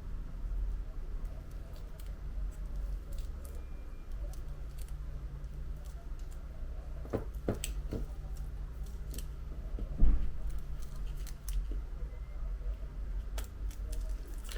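Small metal repair tools clicking and scraping on an iPhone's frame while the old factory adhesive is cleared away, with a louder knock about ten seconds in, over a steady low hum.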